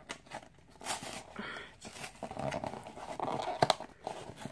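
A cardboard Funko Mystery Minis blind box being opened by hand: irregular rustling and crinkling as the flaps are worked open and a paper insert is pulled out, with a sharp snap of card about three and a half seconds in.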